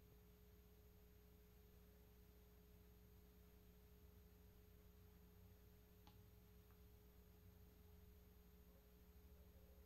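Near silence: room tone with a faint steady hum and one faint click about six seconds in.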